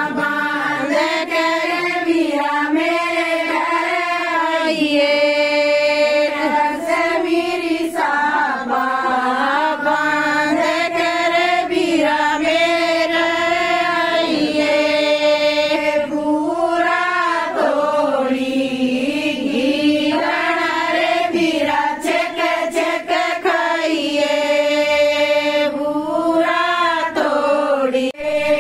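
A group of women singing a traditional wedding folk song together in chorus, in long drawn-out phrases with held notes.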